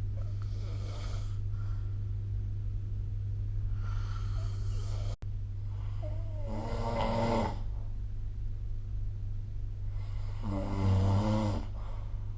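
A person snoring in sleep: soft breaths at first, then two louder, pitched snores about four seconds apart in the second half, over a steady low hum.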